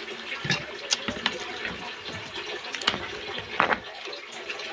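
Wet eating sounds of a person eating cooked crab by hand: sucking and slurping meat and juice from the shell and fingers, broken by several sharp smacks and clicks.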